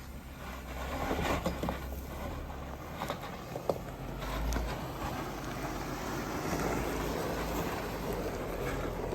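Off-road vehicle driving slowly over rocky ground: a steady low engine rumble with a few short knocks and rattles in the first few seconds.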